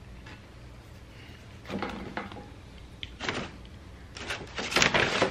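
Paper food trays and a burger wrapper handled and rustled in a few short bursts, the loudest near the end.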